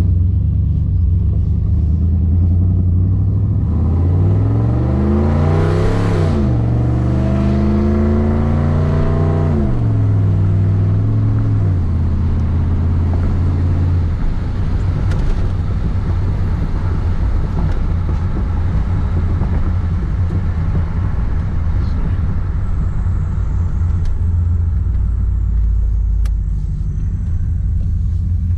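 A 1989 Pontiac Trans Am's 350 small-block V8 with a FIRST TPI intake, heard from inside the cabin while accelerating. The engine note climbs in pitch and drops back at each upshift, twice clearly with a smaller step after, then settles into a steady cruise for the second half.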